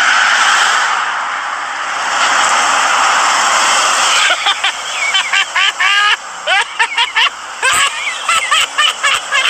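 A steady hiss, then from about four seconds in a string of quick, bird-like squawking calls rising and falling in pitch, several a second.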